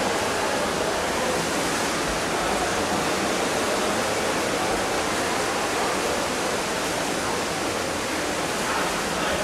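Steady, even rushing hiss of water, heard through a camera submerged in a swimming pool.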